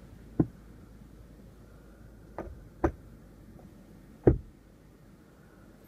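Driver's sun visor of a 2015 Lexus LX 570 being handled and folded up: four sharp knocks and clicks, the loudest about four seconds in as the visor goes up against the roof lining.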